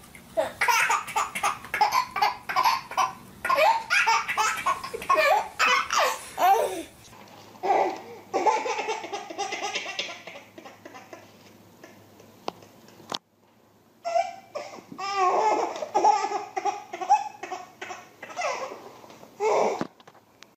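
Babies laughing hard in quick repeated bursts, with a short break about two-thirds through.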